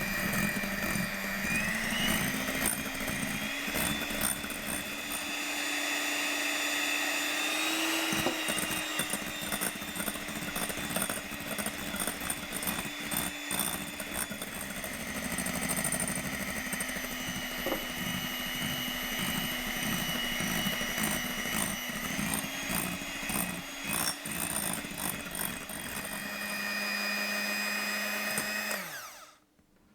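Electric hand mixer running, its beaters whisking and rattling against the bowl. The motor's pitch shifts up and down a few times, then it winds down and stops near the end.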